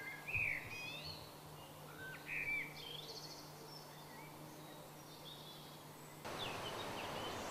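Wild songbirds singing and calling in short, pitch-sweeping phrases over a faint steady low hum. About six seconds in, a louder, even hiss of outdoor background noise sets in suddenly, with further bird calls over it.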